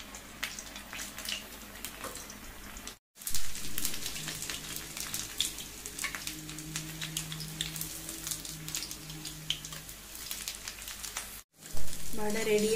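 Urad dal vadas deep-frying in hot oil in a steel pan: a steady crackling sizzle. The sound cuts out briefly twice, and a louder sound comes in near the end.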